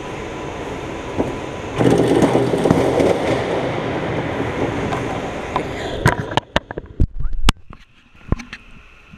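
A rumbling noise for about four seconds, then a run of sharp knocks and clatter as the action camera is handled and moved, its housing knocking against the mount and the board.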